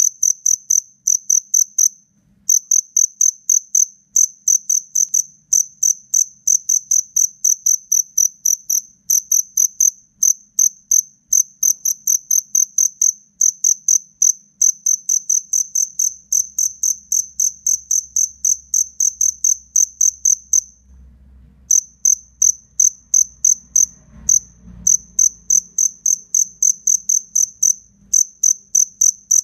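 Two male black field crickets chirping loudly at each other in a face-off. They give a rapid run of high, pulsed chirps, several a second, broken by short pauses about two seconds in and about twenty-one seconds in.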